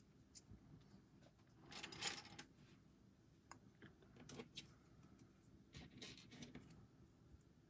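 Faint handling of small plastic LEGO bricks: scattered light clicks and a short rustling clatter about two seconds in, with another run of clicks near the end, as pieces are picked up and fitted together.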